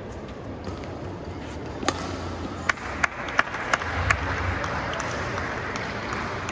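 Badminton rally: a quick series of sharp taps and clicks, about six in two seconds, from racquets striking the shuttlecock and players' shoes on the court. Behind them runs a low steady hum from the hall, with spectator murmur swelling about two seconds in.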